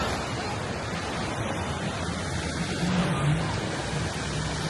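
Ocean surf washing at the shore, a steady rush of water noise.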